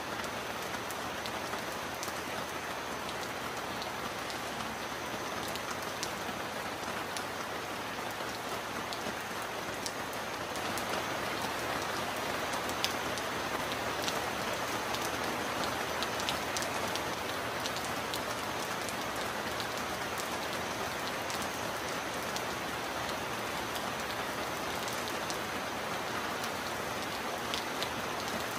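Steady heavy rain: a dense, even hiss with many separate drops ticking sharply against it. It gets slightly louder about ten seconds in.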